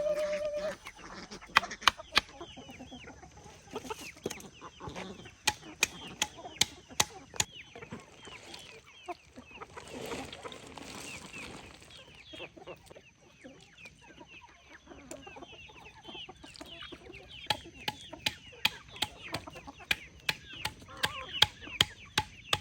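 Chickens clucking, with many small high chirps, against a string of sharp knocks or taps throughout.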